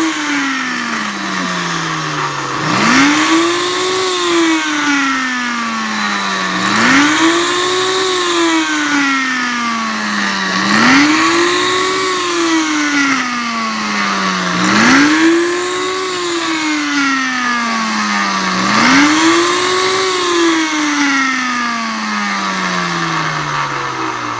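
Ninja Chef high-speed blender running its Extract program on chopped ginger root. The motor speeds up quickly and then winds down slowly in a repeating cycle about every four seconds, five times over.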